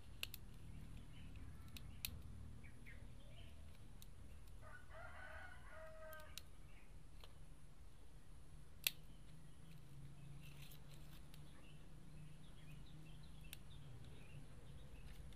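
A rooster crows once, faintly, about five seconds in, the call ending on a lower note. A few sharp clicks come from a plastic opening tool prying around a phone's screen edge, the loudest about nine seconds in, over a low steady hum.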